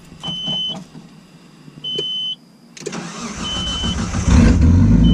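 Nissan RB25 straight-six cranked on the starter about three seconds in, catching about a second later and settling into a loud idle, now fed by a freshly fitted Circuit Sports 340 fuel pump after the old pump failed. Short electronic beeps repeat about every second and a half throughout.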